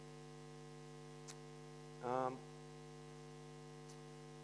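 Steady electrical mains hum. About two seconds in, a man makes one short vocal sound, with a faint click a little before it.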